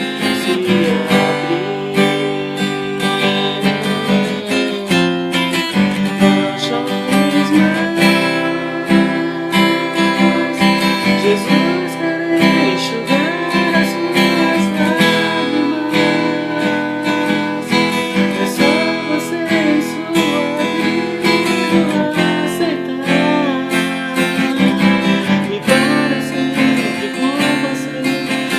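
Music led by a strummed acoustic guitar, with a melody line over it.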